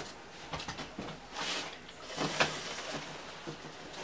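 Cardboard shipping box being handled and tipped up: a few short scrapes and rustles of cardboard, with a few light knocks.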